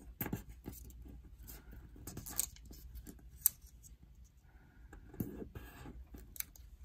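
Small square of colored origami paper being folded and creased by hand against a desk: light crinkling and rustling with a few sharp clicks, the sharpest about three and a half seconds in.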